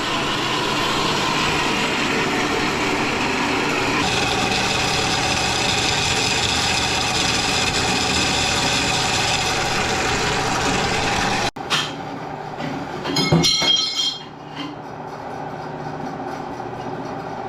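Metal-cutting bandsaw running with a steady whine as its blade cuts through a stack of steel angle iron. About eleven seconds in the sound drops abruptly to a quieter steady run, with a brief metallic clatter a couple of seconds later.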